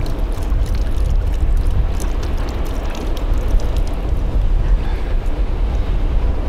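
Wind buffeting the microphone: a loud, gusting low rumble that covers everything else.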